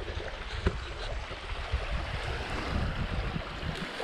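Wind rumbling on the microphone over a steady wash of wind and waves on the shore, with a few faint ticks.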